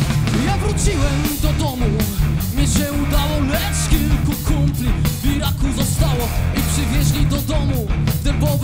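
Rock band playing loud and live through a PA: a Les Paul-style electric guitar, bass guitar and drums, with a melody line bending over a steady drum beat.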